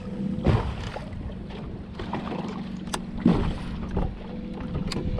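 Minn Kota electric trolling motor running with a steady low hum over the wash of choppy water, with two louder knocks, about half a second in and again a little after three seconds.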